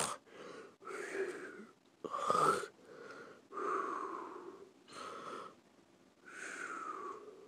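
A person making drawn-out snoring breaths, in and out, about seven times, roughly one a second, acting out sleep.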